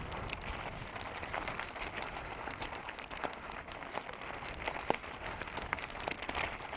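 A unicycle tyre rolling down a loose stony track, with gravel crunching and scattered sharp clicks and pops over a steady rumble.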